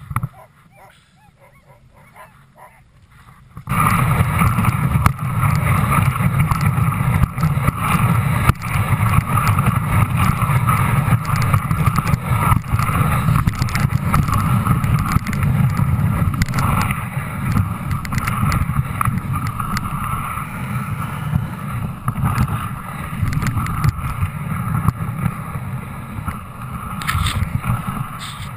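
Dog sled moving over snow: a loud, steady rumbling and scraping noise of the sled runners, mixed with wind on the microphone. It starts suddenly about four seconds in, after a quieter start.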